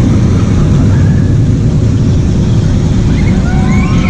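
Zamperla motorbike roller coaster train running along its steel track overhead: a loud, steady low rumble, with a few short rising squeals near the end.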